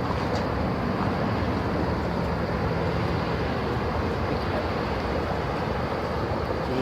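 Steady rushing water of a waterfall, an even unbroken noise.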